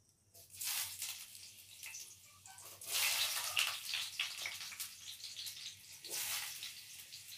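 Raw pumpkin cubes dropped by the handful into hot oil in a stainless steel kadai, sizzling and crackling. The sizzle surges three times, about half a second, three seconds and six seconds in, as each handful goes in.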